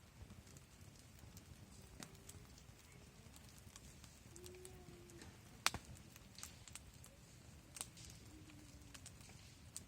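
Wood campfire crackling faintly, with scattered sharp pops of burning wood, the loudest a little past halfway.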